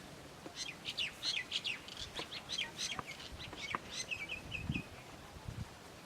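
A songbird chirping in a quick, busy run of high notes, ending in a short string of repeated, slightly lower notes. A couple of low thuds come near the end.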